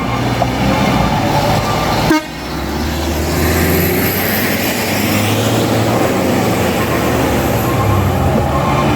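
Bus horn sounding in steady tones over the bus's engine. About two seconds in, the sound cuts abruptly, and then the bus engine runs on under load with its pitch slowly rising.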